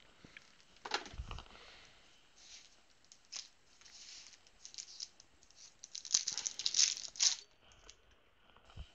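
Trading cards and paper being handled and shuffled: scattered light clicks and short rustles, with a louder flurry of rustling about six to seven seconds in.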